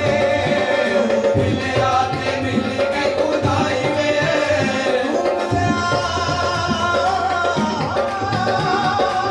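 Live qawwali-style ensemble: tabla playing a steady rhythm under harmonium, with a man's voice singing long, wavering held notes.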